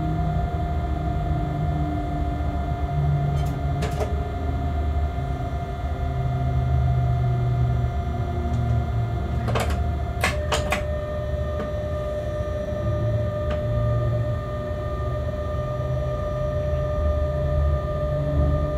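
A locomotive running light, heard from inside its cab: a steady low rumble with a whine of several steady tones. A few sharp clicks come around four seconds in and again around ten seconds, after which the whine settles a little lower in pitch.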